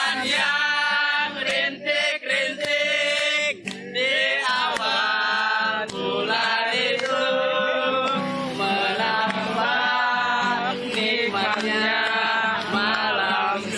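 A song with a sung vocal line over steady instrumental accompaniment, held notes wavering in pitch, phrase after phrase.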